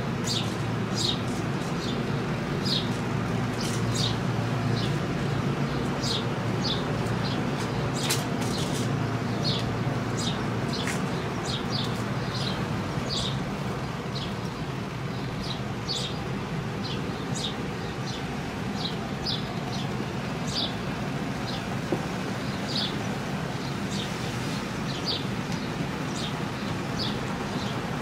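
Electric blower running steadily as it inflates a bouncy castle. Over it a bird chirps repeatedly, short high chirps about one or two a second.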